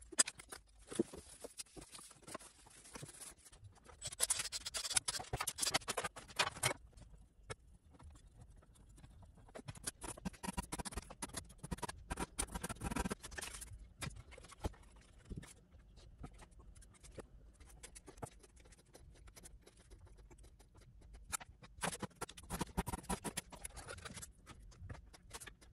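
Hands and tools working on an amplifier circuit board, with scattered small clicks and knocks. Three bursts of scratchy noise, each a couple of seconds long, stand out: about four seconds in, around ten seconds in, and near the end.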